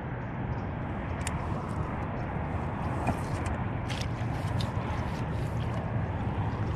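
Steady low rumble of wind buffeting the microphone, with a few short clicks scattered through it.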